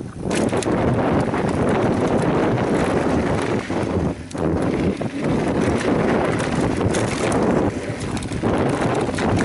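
Mountain bike rolling fast down a rough trail: a continuous clatter and rattle of the bike over bumpy ground, with wind buffeting the microphone. The noise eases briefly a few times, around four seconds in and again near eight seconds.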